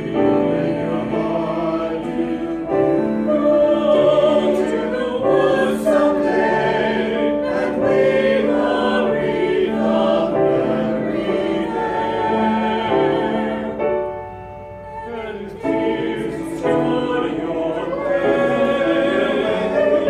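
Mixed choir of men and women singing in several parts, with sustained notes; the sound thins to a quiet moment about three-quarters of the way through, then the voices come back in.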